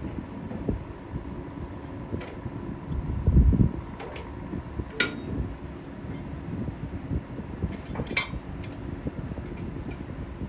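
Steady low mechanical hum aboard a Hurtigruten coastal ferry, with a gust of wind buffeting the microphone about three seconds in and a few light clicks.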